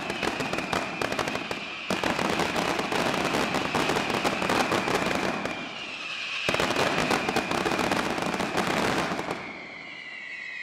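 Fireworks barrage: a dense, continuous crackle of firecracker reports that surges anew about two seconds and six and a half seconds in, then thins out and fades near the end.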